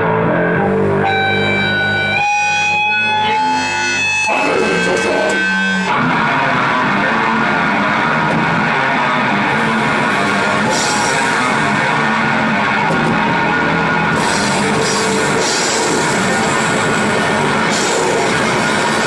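Heavy metal band rehearsing: distorted electric guitars with drums. It opens with held guitar notes that step in pitch, then about six seconds in the full band comes in with dense riffing and cymbals.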